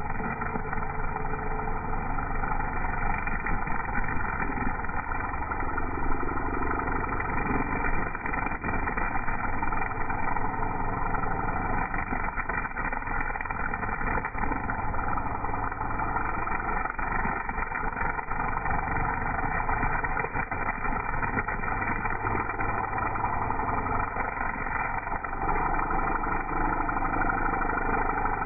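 Gas string trimmer engine running steadily at high speed while its spinning line cuts grass, a little louder near the end.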